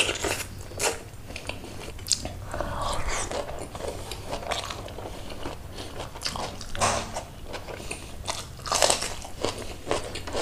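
Close-up mouth sounds of a person eating by hand: chewing rice and leafy greens with many irregular lip smacks, clicks and light crunches, a little louder about seven and nine seconds in.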